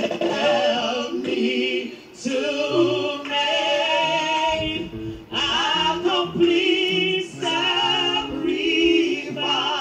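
A woman sings a gospel song solo into a handheld microphone, drawing out wordless held notes with heavy vibrato. The phrases break for a breath about 2 seconds in and again about 5 seconds in.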